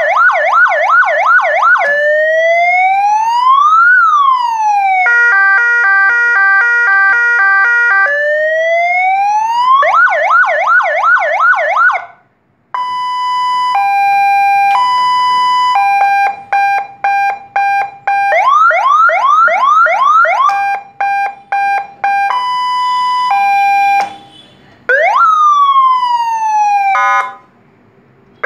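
Electronic vehicle siren amplifier sounding through a compact horn speaker, switched through its tones one after another. It plays a fast yelp of rapid repeated rising sweeps, a slow wail rising and falling, stepped hi-lo and multi-tone patterns, and a single falling sweep, with brief breaks as the tone changes.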